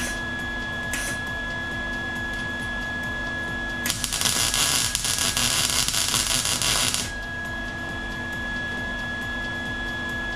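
Welding arc crackling for about three seconds in the middle as a short weld is run on the car's sheet-metal door jamb, with a brief blip of arc about a second in. A steady hum underlies it throughout.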